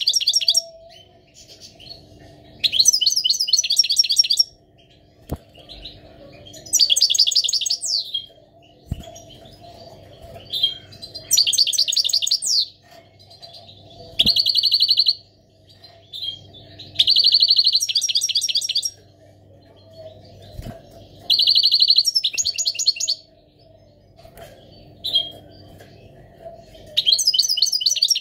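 Caged male European goldfinch in breeding condition singing: about eight short bursts of fast, high twittering song a few seconds apart, some of them holding a buzzy rattle.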